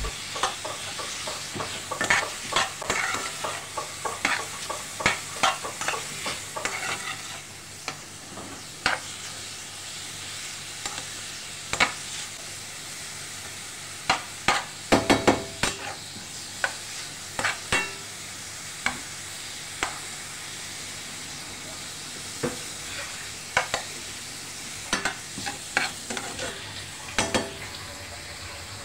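Shrimp and sliced onions sizzling in oil in a pan as they are sautéed, with a steady hiss under frequent clicks and scrapes of a utensil stirring against the pan; a cluster of louder knocks comes about halfway through.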